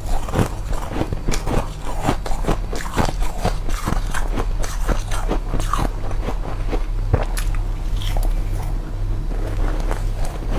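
Close-up crunching of a person biting and chewing powdery freezer frost, a quick, irregular run of crisp crunches several times a second.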